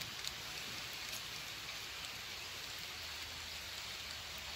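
Steady, even hiss of wind over open water and reeds, with a couple of faint clicks about a second in.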